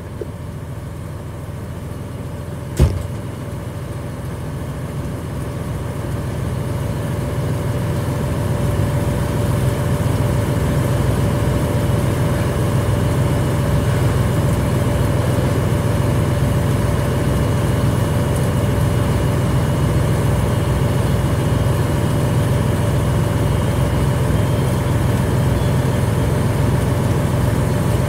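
Fire engine's motor running steadily while pumping water to charged hose lines. It grows louder over the first several seconds and then holds. A single sharp knock sounds about three seconds in.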